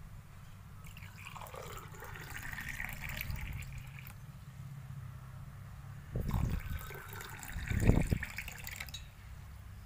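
Water pouring from a steel jug into small glasses of sugar, in two pours: one from about a second in until about four seconds, and another from about six to nine seconds. The second pour carries two low thumps, the louder near its end.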